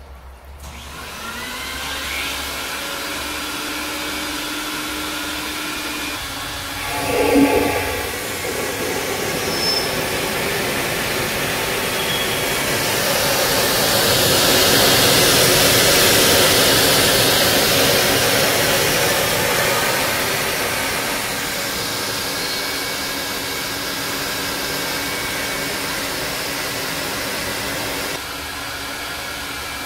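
A rug-cleaning machine's motor spins up and runs steadily with a loud rushing noise like a vacuum. It is loudest in the middle, has a brief louder burst about seven seconds in, and steps down slightly near the end.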